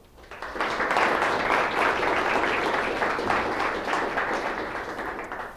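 Audience applauding: many hands clapping at once, swelling within the first second, holding, then slowly tapering and dying away near the end.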